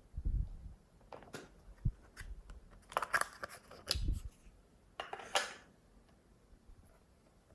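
Glossy slime being handled by hand: a few low squelching thuds and several short crackly, sticky pops and crackles as it is pressed and pulled, with quiet gaps between.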